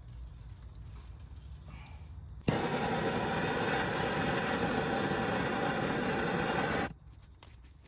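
A handheld heat gun switched on about two and a half seconds in, blowing a steady rush of air for about four seconds, then switched off; it is shrinking tubing over a crimped battery cable terminal.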